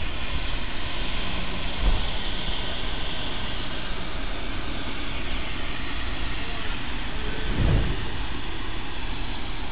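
Steam locomotive 1309, a 2-6-6-2 Mallet, standing hot under steam with a steady hiss. There is a low thump about two seconds in and a brief low rumble near the end.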